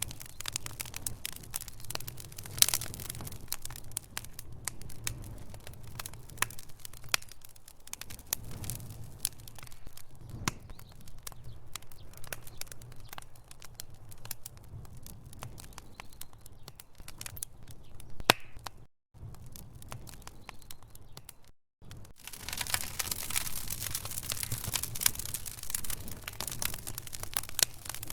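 Wood fire burning in a fireplace, logs crackling and popping in a dense run of sharp snaps over a low rumble. The sound drops out briefly twice about two-thirds of the way through, and the crackling is thicker and louder after that.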